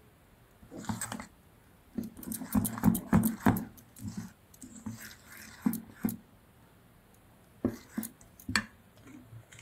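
Metal spoon stirring a thick semolina batter in a stainless steel bowl: irregular clinks and scrapes against the bowl with wet stirring sounds, in clusters with a short pause past the middle.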